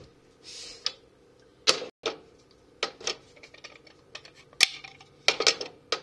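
Irregular sharp clicks and knocks of plastic objects being handled and set down on a stovetop, with a short rustle about half a second in.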